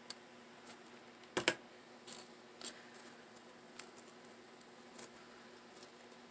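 Faint rustling and light clicks of satin ribbon petals being handled and fitted together between the fingers, with a sharper double click about a second and a half in.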